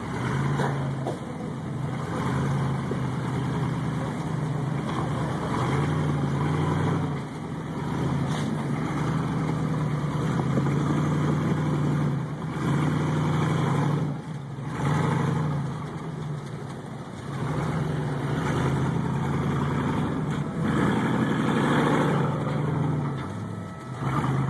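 Engine of a modified Jeep rock crawler running as it climbs over rock ledges, its note rising and falling with the throttle several times.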